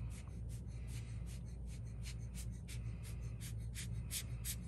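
Hand-squeezed rubber air blower bulb puffing short bursts of air, about four a second, pushing wet alcohol ink across the paper. A steady low hum runs underneath.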